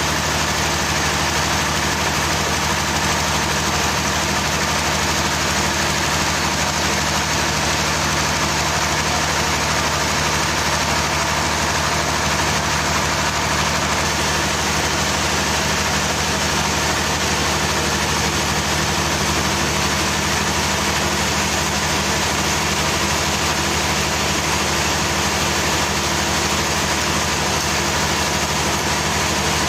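A machine engine running steadily at an unchanging idle, with no load or change in speed.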